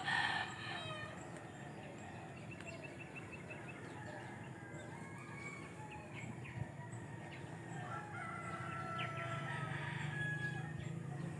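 Faint rooster crowing over quiet outdoor ambience: one louder crow at the start and fainter, drawn-out crows toward the end.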